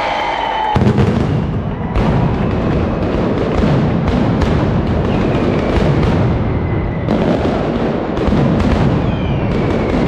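Mascletà firecrackers going off in a loud, dense, rapid barrage of bangs that begins about a second in, with a few whistling rockets over it.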